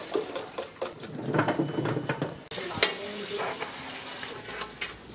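Water splashing and dripping off a bunch of green beans being rinsed, then a few sharp knife clicks as a potato is cut on a metal work surface.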